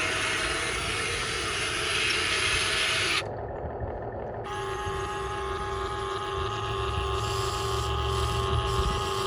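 Small radio-controlled hydraulic excavator running, its pump giving a steady whine. A loud hiss covers about the first three seconds, and a low rumble joins in near the end.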